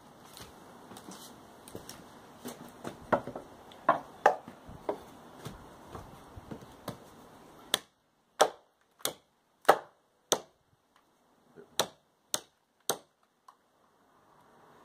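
Cold Steel Trail Hawk's sharpened blade chopping into a short upright piece of wood on a sawhorse. Lighter knocks and taps come first, then eight hard chops in quick succession, with a brief pause after the fifth.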